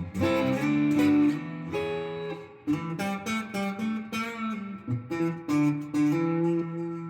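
Clean electric guitar from a Telecaster with Seymour Duncan pickups and Triple Shot switching rings, both pickups wired in series. A few strummed chords open it, then a run of separately picked notes, ending on a held chord that rings out.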